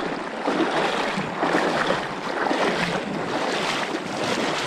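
A person wading through a river, water splashing and sloshing around the legs continuously, with irregular surges as each stride pushes through.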